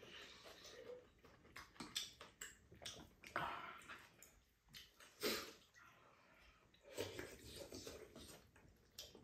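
Slurping and chewing of tuna rice cake soup (tteokguk), eaten from spoons: a series of short wet slurps, the loudest about five seconds in, with light clicks of spoons and chopsticks against bowls between them.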